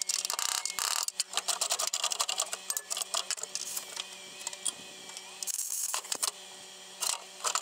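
Plasma cutter torch cutting through the welded bolt heads on a steel roll bar mount: bursts of hissing air and crackling arc, the strongest about five and a half seconds in and again near the end, over a steady low hum and scattered clicks.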